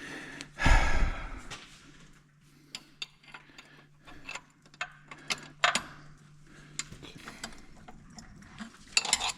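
A ratchet wrench working a bolt deep in an engine block, giving scattered irregular metallic clicks and knocks, with a heavy thump less than a second in.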